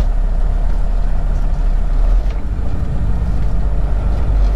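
Semi truck's diesel engine and road noise heard from inside the cab as a loud, steady low rumble.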